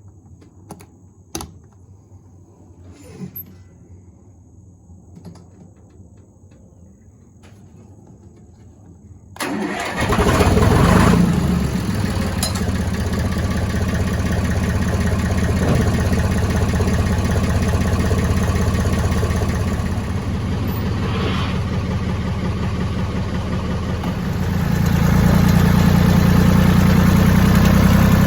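An engine starts up about nine seconds in, after a quiet stretch with a few faint clicks, then runs steadily and gets louder near the end.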